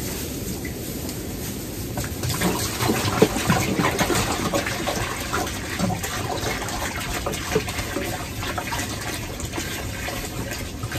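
Water poured from a bucket into a black rubber pan on the floor, refilling the goats' water, starting about two seconds in and running as the pan fills.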